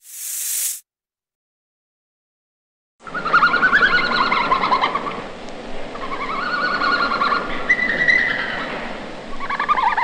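A green mamba's hiss cuts off within the first second. After about two seconds of silence, a red panda calls in a run of high, quickly wavering phrases.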